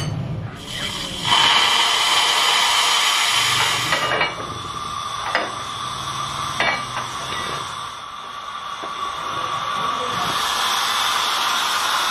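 Steam hissing out of a steam-curing vessel for rubber hoses as it is vented and opened, with a few sharp metal knocks partway through. The hiss eases off, then builds again near the end as the door swings open.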